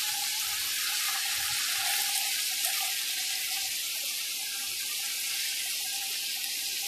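Chicken pieces and chopped vegetables sizzling in hot oil and sauce in a metal cooking pot: a steady, even frying hiss.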